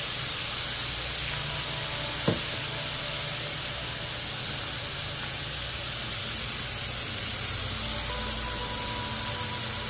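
Smashburger patties sizzling in a hot cast iron braiser, a steady frying hiss. There is one sharp click about two seconds in.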